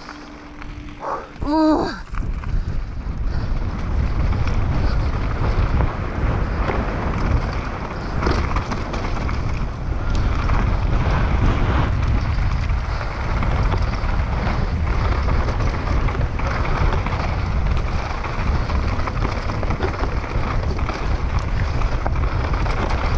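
Wind buffeting the helmet camera's microphone over the constant rattle and crunch of a downhill mountain bike rolling fast over a rough, rocky trail: tyres on gravel and stone, with chain and frame clattering.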